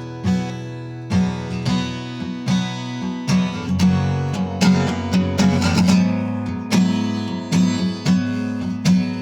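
Acoustic guitar strumming chords in a steady rhythm, an instrumental introduction before the vocals begin.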